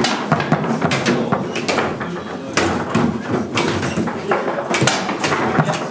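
Foosball table in fast play: sharp, irregular knocks and clacks of the ball against the men and the table, and of rods being snapped and slid by the players, several in quick succession.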